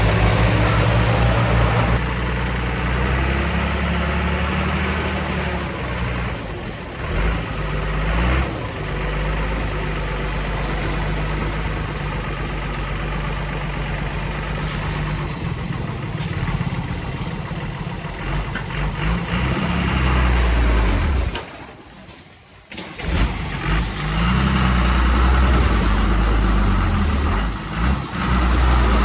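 Diesel engine of heavy earthmoving machinery running under changing load, its pitch rising and falling. About three quarters of the way through it drops away for a second or so, then comes back.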